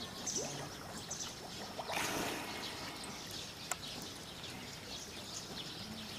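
Water bubbling and lapping around a greater one-horned rhinoceros's submerged muzzle, with a brief louder splash about two seconds in as it lifts its nostrils out of the water.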